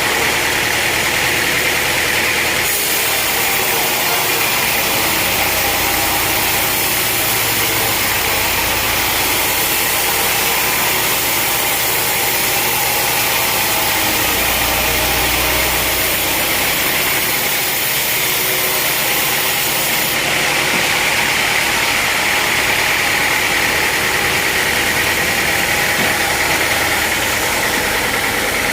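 Sawmill machinery running steadily with a loud engine-like drone. A brighter, hissier sound comes in about three seconds in and drops away about twenty seconds in.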